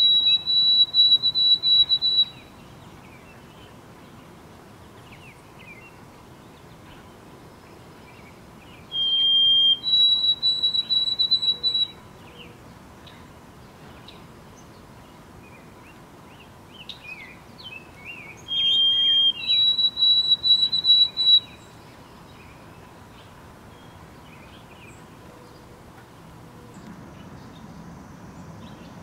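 White-throated sparrow singing its clear whistled song: a held lower note, then a higher note broken into quick repeated phrases, the 'Oh sweet Canada Canada' pattern. Three songs about nine seconds apart, the first already under way at the start, with faint short chirps between the second and third.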